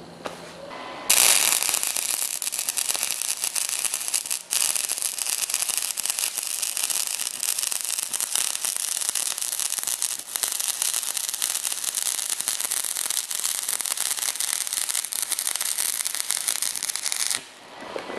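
Stick-welding arc crackling and sputtering steadily, run on AC from a 115 V MIG 130 flux-core welder converted to stick with a stinger lead. The arc strikes about a second in, breaks briefly twice, and stops about a second before the end.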